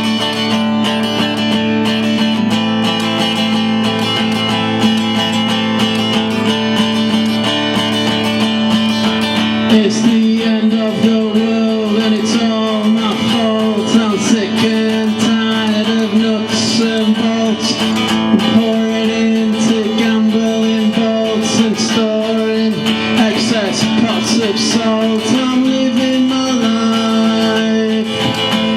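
Bluesy guitar music with no vocals: a held low note rings under the playing, and from about ten seconds in lead notes bend and slide in pitch.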